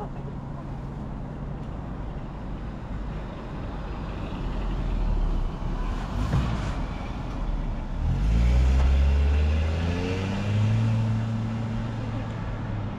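A motor vehicle's engine on the road, growing louder from about a third of the way in, rising in pitch as it accelerates about two-thirds of the way through, then settling to a steady note.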